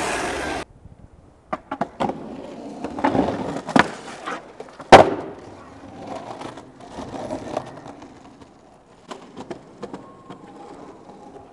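Skateboard on rough pavement: wheels rolling with a string of sharp clacks and knocks from the board, and one loud board impact about five seconds in.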